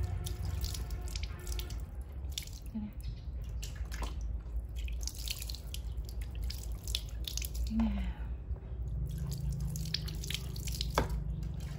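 Water running and dripping, with many small scattered splashes.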